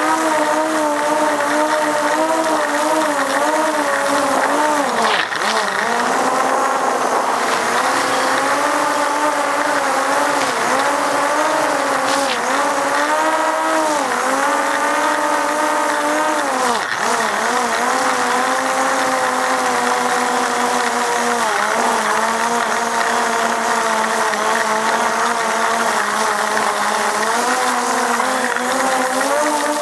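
Multirotor drone's motors and propellers whining steadily, the pitch wavering up and down with brief dips as the motors speed up and slow down.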